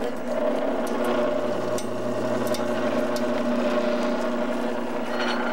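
Electric boat lift motor running with a steady hum as it lowers a boat into the water.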